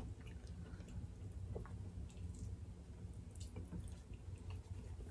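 Faint eating sounds of people eating by hand: chewing, with small wet mouth and finger clicks scattered through, over a low steady hum.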